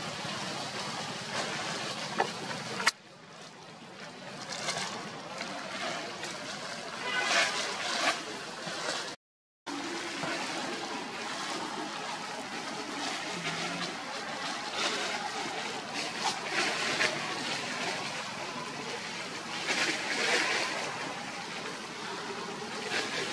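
Macaques rustling through dry leaf litter and a plastic bag, irregular rustles over a steady outdoor hiss, with a brief dropout to silence near the middle.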